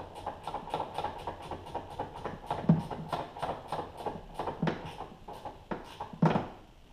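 Ratcheting wrench clicking in a quick steady run, about five or six clicks a second, as the front strut top-mount nuts are snugged down. A few louder knocks stand out, the loudest about three seconds in and near the end.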